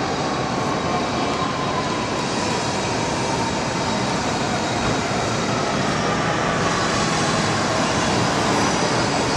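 Steady loud vehicle noise, a dense rushing rumble with a faint whine that slowly falls in pitch.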